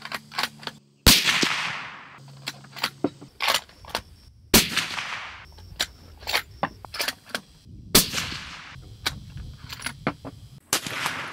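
Three shots from a 7mm Remington Magnum bolt-action rifle (Tikka T3X), each a loud sharp crack with a long fading echo, spaced about three and a half seconds apart. Between the shots come small metallic clicks as the bolt is cycled.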